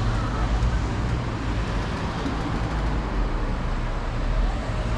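Street traffic noise with a car moving slowly close by, over a steady low rumble.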